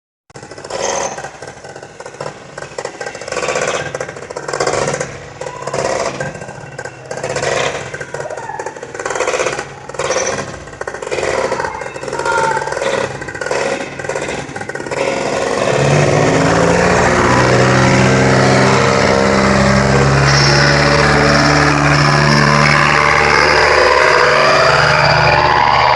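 Small engine driving a propeller on a snow-going ski rig. It rises and falls in surges for about fifteen seconds, then runs steadily and loud.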